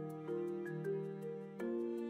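Soft instrumental background music: gentle sustained notes that change every half second or so, over a light ticking beat.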